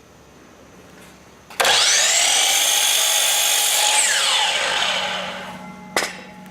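DeWalt DWS780 12-inch sliding compound miter saw's motor started about a second and a half in. It spins up to a steady high whine for about two and a half seconds, then winds down with a falling whine after the trigger is released. A single sharp knock comes near the end.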